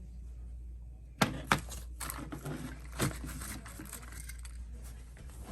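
Small hard objects being handled on a work table: two sharp clicks a little over a second in, then a run of lighter clicks and rattles.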